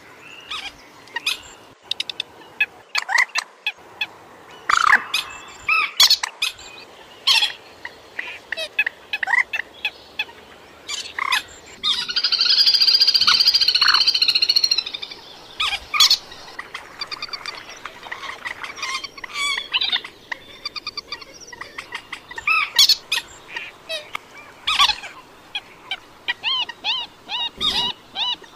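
Moorhen calls: a run of short, sharp calls, one to two a second, with one loud drawn-out call lasting about three seconds near the middle.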